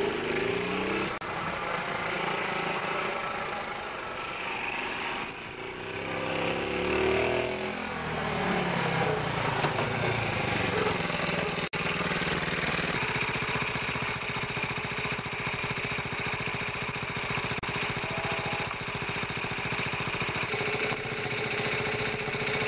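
Honda Z50 minibike's small single-cylinder four-stroke engine running, its pitch rising and falling as it is revved and ridden, then settling into a steady idle about halfway through.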